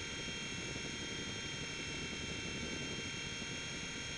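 Blade mCX2 micro coaxial RC helicopter in flight: its small electric motors give a steady whine of several high tones over the rushing of its rotors, with no change in pitch.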